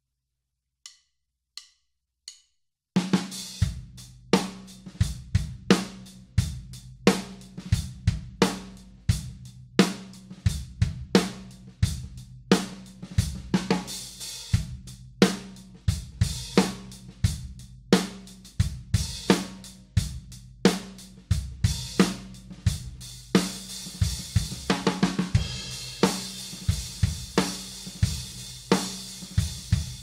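A drum kit groove of kick, snare and 16-inch Dream Bliss hi-hats, the hi-hats marking a steady beat. It starts after three light clicks counting in. The cymbal wash grows thicker about two-thirds of the way through.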